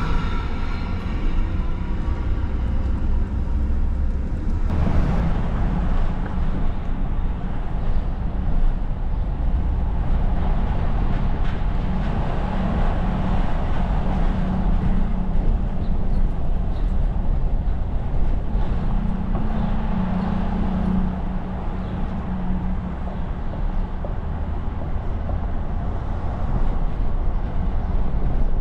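Steady low rumble of urban vehicle traffic, with a low hum that is strongest in the middle.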